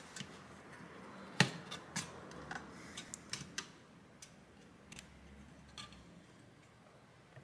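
A graphics card's cooler and circuit board being handled and fitted together: scattered light clicks and taps of plastic and metal, the sharpest about a second and a half in.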